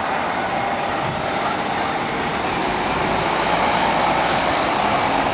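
Road traffic noise: a steady rush of passing vehicles that grows slightly louder.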